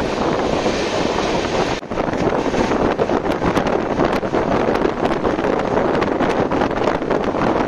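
An Indian Railways express coach running at about 83 km/h, heard from an open doorway: a steady rush of wind on the microphone over the train's running noise. There is a brief drop about two seconds in, and from about three seconds on a run of sharp clicks rides on the rush.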